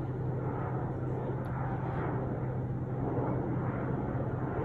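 Airliner on landing approach: steady engine noise growing slightly louder toward the end as the plane comes closer.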